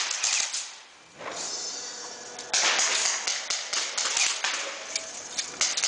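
Airsoft guns firing: rapid, sharp snapping shots that come in volleys. The firing dips briefly about a second in and turns dense again from about two and a half seconds in.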